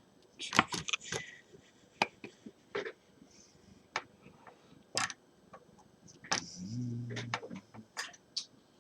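Scattered sharp clicks and scrapes of a spudger or flathead screwdriver prying at a stubborn rubber screw cover on a plastic laptop screen bezel. A short low hum comes in about two-thirds of the way through.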